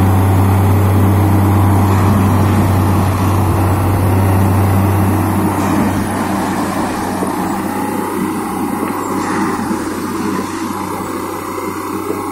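Railway track tamping machine running: a steady low engine drone with mechanical and hydraulic noise from the tamping gear. The drone weakens about halfway through.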